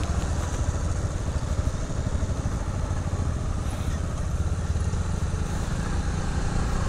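Motorcycle engine running steadily under way, heard from the rider's own bike.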